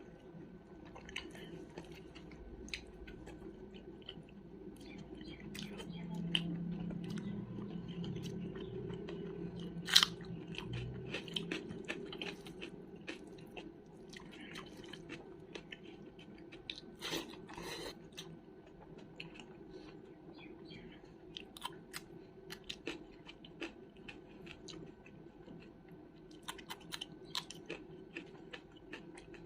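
Close-miked chewing: steady wet mouth sounds with scattered crunches and small clicks, and one sharper click about ten seconds in. A low steady hum sits underneath for several seconds in the first half.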